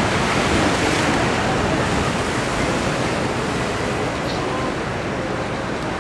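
Ocean surf breaking on a rocky shore, a steady rush of noise.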